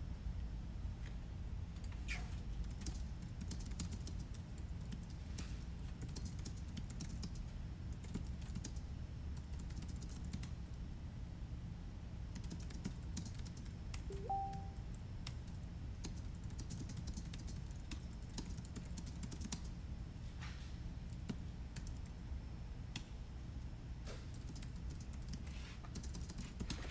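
Low steady hum with faint, irregular light clicks scattered throughout. About halfway through, one short beep of two notes, the second higher.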